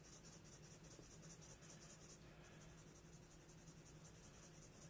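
Felt-tip marker scratching faintly on paper in short hatching strokes.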